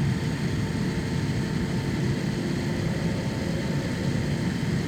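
Steady low rumble of an airliner cabin, engine and air-conditioning noise, with a faint steady hum.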